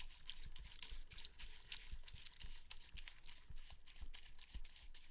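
Crunchy granola being eaten: a dense crackle of crunches with soft low thumps every fraction of a second.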